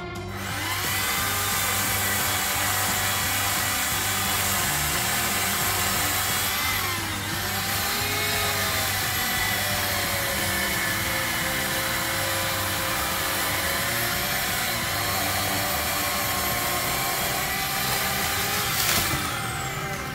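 Power saw running while cutting a tree limb overhead. It starts about a second in and runs steadily; its pitch sags and recovers under load around a third of the way in, and it stops at the end.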